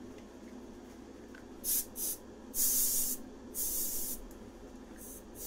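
Aerosol can spraying in four short hissing bursts, the third the longest, over the steady hum of a spray booth's exhaust fan.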